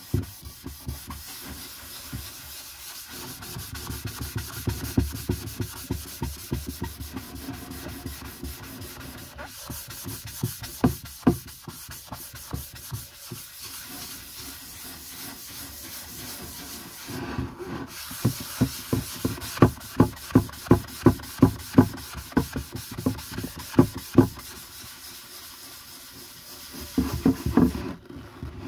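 A yellow pad rubbing finishing oil into a wooden box lid in back-and-forth strokes, running at about two strokes a second just past the middle, with short pauses and a brisker burst of scrubbing near the end.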